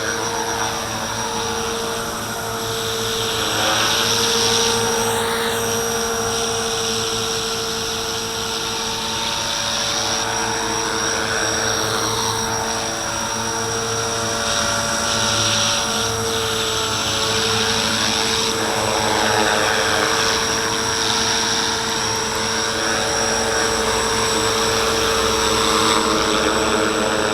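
Walkera V450D01 450-size electric RC helicopter hovering just above the floor: the steady whine of its motor and the whir of its main and tail rotors. The pitch wavers a little, and a slow whooshing sweeps up and down as it is held in place.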